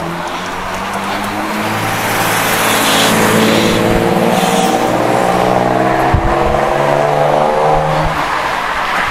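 City bus engine running close alongside, its pitch rising as it pulls ahead and then holding steady before it fades near the end, over rushing wind and road noise. A short low knock comes about six seconds in.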